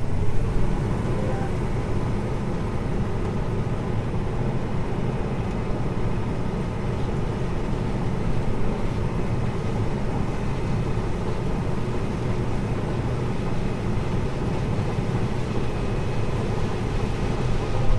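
Combine harvester running steadily as it picks corn: an even low drone with a few faint steady whining tones above it.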